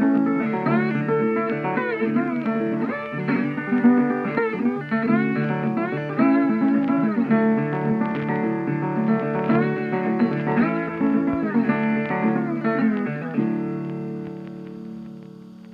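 Background music: guitar playing a bluesy riff with bent notes, ending on a held chord that fades out near the end.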